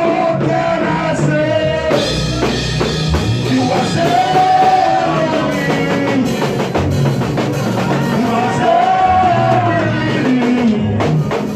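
Worship music: a singer's melody over a band with drum kit and guitar, at a steady beat.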